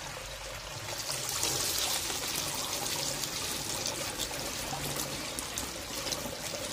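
Shallow water running and trickling across a tiled tank floor, a steady pouring sound that grows louder about a second in.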